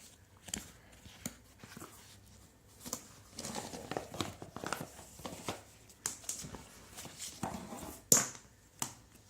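A cardboard box being opened by hand and its packaging handled: scattered rustling, crinkling and tearing, with light taps and clicks. The loudest is a sharp knock about eight seconds in.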